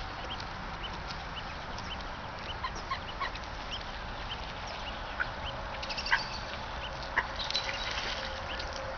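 Ducks and other water birds calling: many short, high chirps scattered throughout, with a few louder sharp calls around the middle, over a steady background hiss.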